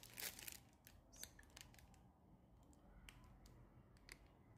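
Near silence with a few faint, sharp clicks and a short rustle in the first two seconds, and a couple of fainter ticks later: small handling noises over quiet room tone.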